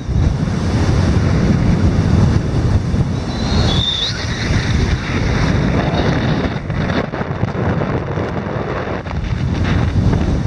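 Strong wind buffeting the microphone over surf breaking and churning against the base of a coral limestone sea cliff. A brief high chirp rises out of the noise about four seconds in.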